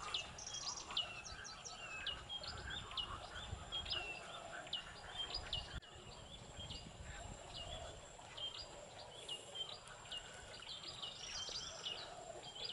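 Wild birds calling: a quick series of short, sharp, high chirps, roughly two a second, over a faint steady high-pitched tone.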